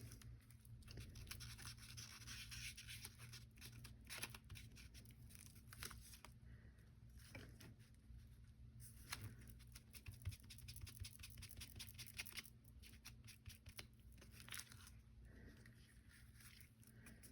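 Faint paper handling: scattered light rustles, taps and small clicks of paper and craft supplies being moved about.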